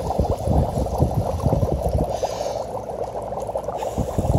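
Dry ice bubbling in a metal bowl of water: a steady, dense bubbling and gurgling as the carbon dioxide gas from the subliming dry ice breaks through the water.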